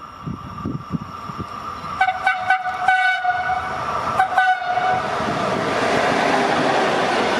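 Horn of an approaching Italian electric locomotive hauling a heritage train: a quick run of short blasts about two seconds in and another pair about four seconds in. After them the rumble of the locomotive and coaches grows as the train draws near.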